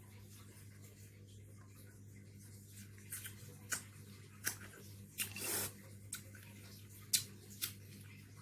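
A low steady hum with several short clicks and smacks scattered through the second half, one of them a little longer and noisier.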